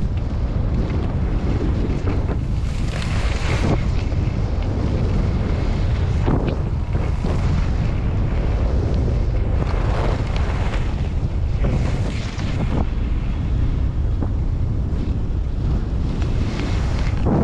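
Wind buffeting the microphone of a skier moving downhill, a constant heavy rumble. Over it, a hiss swells and fades every second or two, like skis carving and scraping the snow on each turn.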